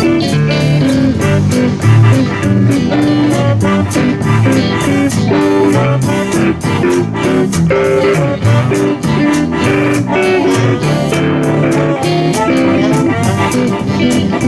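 Live blues band playing an instrumental break: an electric guitar lead over bass and drums keeping a steady beat.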